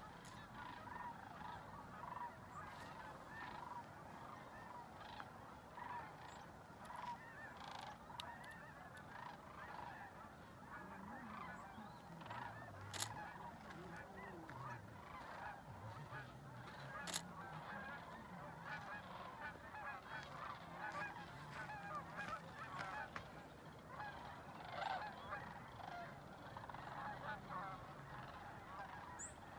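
A large flock of geese and sandhill cranes calling continuously, many overlapping calls at once. Two sharp clicks come about 13 and 17 seconds in.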